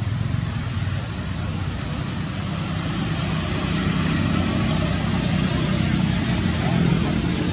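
Steady low rumbling background noise with a hiss over it, growing a little louder about three seconds in.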